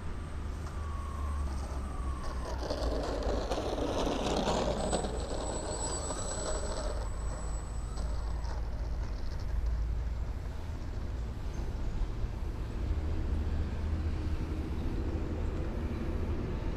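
Wind buffeting the microphone with a steady low rumble, over the whine of a radio-controlled N250 model airliner's propeller motors as it taxis. Their pitch glides up and down in the first few seconds, and a thin high whine runs from about five to eight seconds in.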